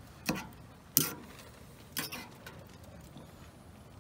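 Wooden utensil knocking against the side of a small metal camping pot while stirring spaghetti in sauce: four short knocks, the loudest about a second in.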